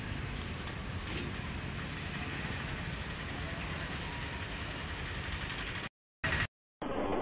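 Steady outdoor rumble and hiss, cutting out briefly twice near the end.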